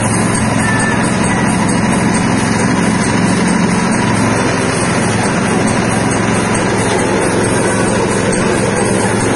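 Soybean dehulling machine running steadily: a continuous motor drone that does not change, as the machine splits soybeans and separates the skins.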